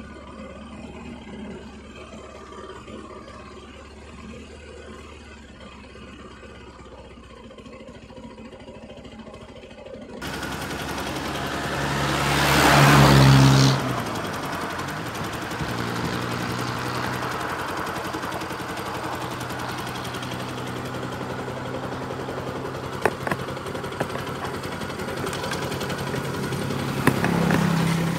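Motorcycle engine running while riding, rising to a loud swell of engine and rushing noise about twelve seconds in that drops off suddenly, then running steadily. A few sharp clicks come in the second half.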